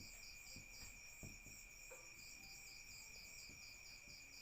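Faint cricket chirping, a quick pulsing of about four chirps a second over a steady high tone; the chirping drops out about half a second in and picks up again about two seconds in.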